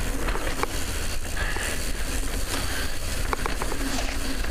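Wind rumbling over a helmet-mounted microphone as a mountain bike rolls fast down a dry dirt trail, with tyre hiss on the dirt and short rattling clicks from the bike and loose stones, more of them in the second half.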